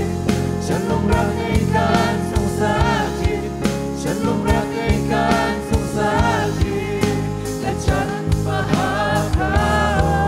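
Live contemporary worship music: a band with drums and sustained chords backs voices singing a worship song, the melody wavering with vibrato.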